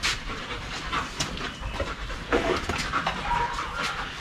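Dog panting in short quick breaths, growing denser and louder about two seconds in.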